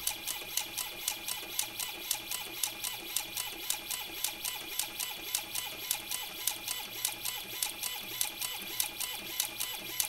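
Robotic safe auto-dialer's motor turning a combination lock's dial as it works through combinations. A steady whine runs under a regular click about three times a second.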